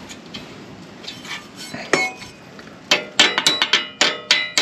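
Hammer tapping on a steel bar laid across a hand truck's springs: a few light metal clinks, then about three seconds in a quick run of ringing metal strikes, about five a second.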